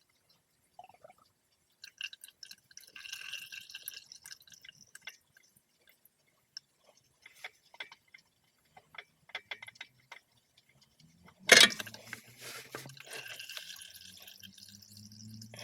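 Engine oil trickling and dripping, with scattered small clicks and a sharp knock about eleven and a half seconds in.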